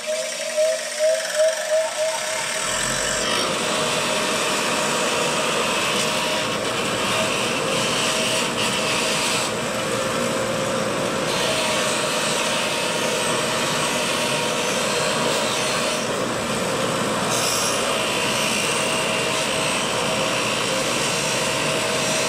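DeWalt 8-inch bench grinder coming up to speed over the first couple of seconds, then running steadily while its wire wheel brushes a metal part held against it, giving a steady scratchy hiss over the motor's hum.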